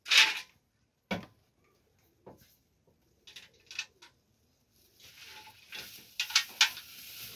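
Handful of small dried fish dropped onto a metal weighing-scale pan with a sharp rattle, followed by lighter clicks and scrapes as the fish are handled. From about five seconds in, a thin plastic bag crinkles steadily while the fish are poured back into it.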